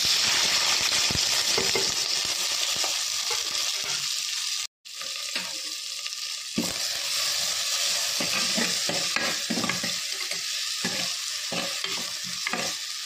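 Chopped onion, tomato, green chilli and curry leaves hit hot coconut oil in a clay pot and sizzle loudly at once. After a brief break, the frying goes on while a spoon stirs them, with repeated scrapes and knocks against the pot.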